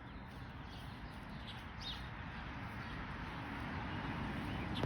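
A few short bird chirps over a steady outdoor background hiss.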